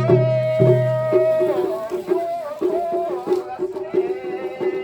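Traditional festival music: drums beat a quick, even rhythm under a pitched melody line that holds and slides between notes. A low droning tone fades out about a second and a half in.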